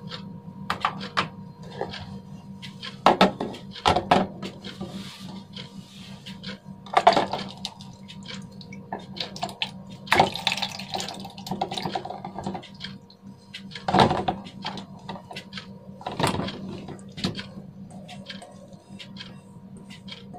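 Marinated beef and its sauce sliding and splattering wetly out of a stainless steel mixing bowl into a plastic container, with irregular knocks and scrapes against the bowl every second or two. A steady low hum runs underneath.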